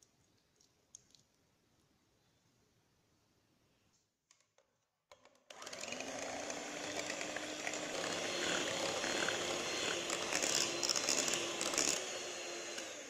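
Electric hand mixer starting about five and a half seconds in and running steadily with a constant motor hum, its beaters whipping cream and melted chocolate into chocolate whipped cream.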